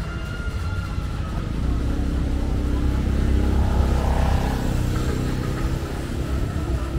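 A motor vehicle passes close by on the street. Its engine grows louder to a peak about four seconds in, then fades.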